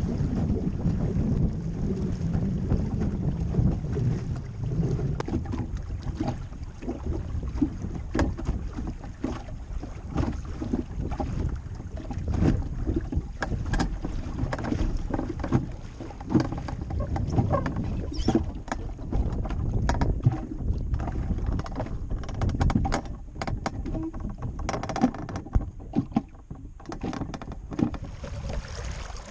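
Water lapping and slapping irregularly against the hull of a small wooden sailing skiff, over a low rumble of wind buffeting the microphone.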